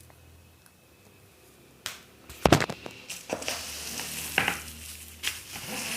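Keyboard packaging being handled: a sharp knock or two about two seconds in, then crackly rustling and crinkling of plastic and cardboard with scattered clicks.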